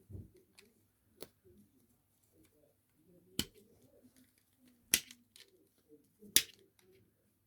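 Plastic puzzle ball pieces clicking as they are handled and fitted together: four sharp clicks spread across the few seconds, the last two loudest, with faint handling rustle between them.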